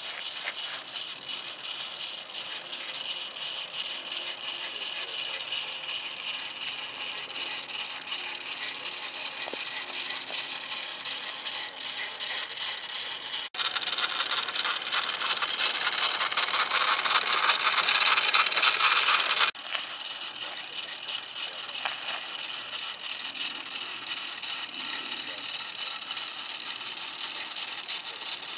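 Wilesco live-steam model traction engine running and rolling over concrete: a fast, steady metallic clatter from its small steam engine, chain drive and metal-rimmed wheels. It is abruptly louder for about six seconds midway, when the tractor is close to the microphone.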